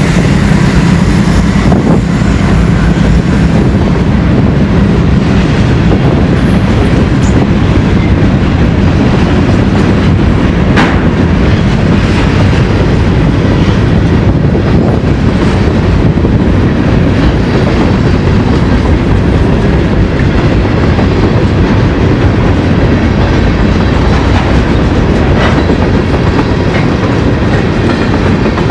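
Freight train passing close by: the diesel locomotives' engines drone for the first few seconds, then a long line of covered hoppers and tank cars rolls past with steady wheel clatter on the rails.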